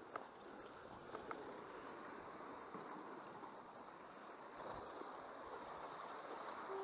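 Faint, steady wash of ocean surf and wind on a rock jetty, with a few light clicks in the first second and a half.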